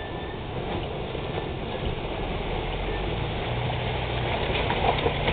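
Small 4x4 SUV's engine running at low revs as it drives slowly through a shallow stream, growing louder as it comes closer, over the rush and splash of water pushed aside by its front and tyres.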